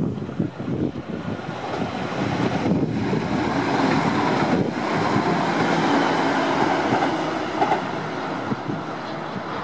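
NSW TrainLink Xplorer diesel multiple unit passing close at speed: underfloor diesel engine and wheels on the rails, building to its loudest about halfway through as the cars go by, then easing a little.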